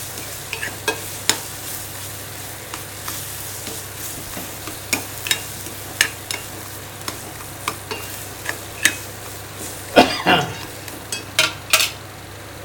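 Steel ladle scraping and clinking against a metal kadai as thick grated-mango thokku is stirred while it fries in oil, over a steady sizzle. The clanks are irregular, with the loudest ones about ten seconds in and again shortly before the end.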